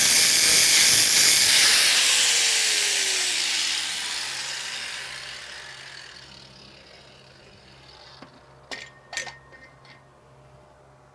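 DeWalt angle grinder grinding down the tack welds on a steel pipe, then switched off about two seconds in, its whine falling in pitch as the disc spins down. A few light clicks and knocks follow near the end.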